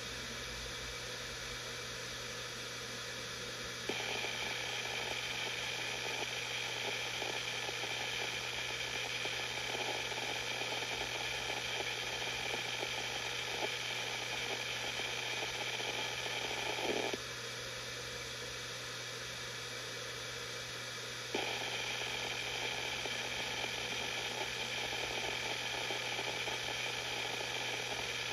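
Samsung SpinPoint F1 500GB 7200 RPM hard drive spinning with a steady hum and hiss. About four seconds in its noise turns louder and busier, with faint irregular ticks typical of the heads seeking. It drops back to the plain spin for a few seconds past the middle, then rises again.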